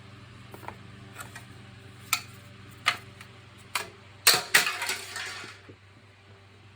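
Hard plastic vacuum-cleaner parts being handled: three separate sharp clicks, then a louder burst of knocking and rattling a little past the middle. A steady low hum runs underneath.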